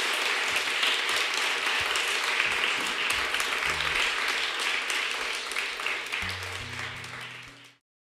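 Audience applauding after a live acoustic song, the clapping slowly fading, then cut off abruptly just before the end.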